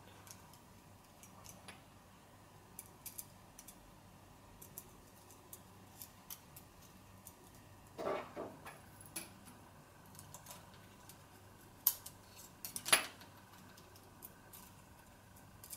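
Faint clicks and taps of small plastic and metal parts being handled as a Canon PowerShot G10 compact camera's back housing is fitted onto its body. About halfway through there is a louder knock, and near the end two sharp clicks, the second the loudest.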